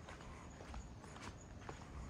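Footsteps on pavement at a steady walking pace, about two steps a second, over faint background hum.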